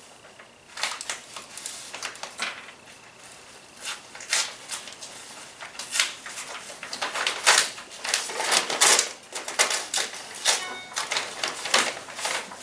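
Paper envelope being torn open by hand, with irregular crackling and rustling of paper that gets louder and busier in the second half.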